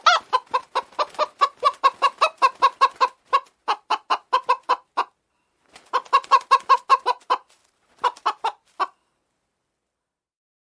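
Domestic hens clucking in three runs of rapid, evenly spaced clucks, about six a second: a long run, then two shorter ones.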